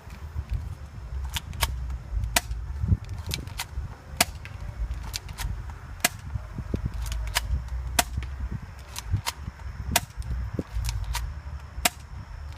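Airsoft Colt 1911 pistol firing shot after shot, about a dozen sharp snapping cracks spaced roughly half a second to a second apart. The cracks sit over a steady low rumble.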